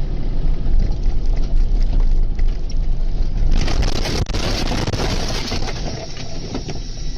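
A vehicle engine running with a steady low rumble. About three and a half seconds in, a louder rushing hiss lasts for about a second and a half.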